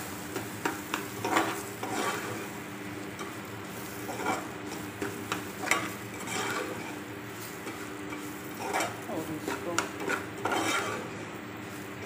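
A metal spoon stirring and scraping semolina roasting in oil in a metal pot, in irregular strokes about once a second, over a faint sizzle.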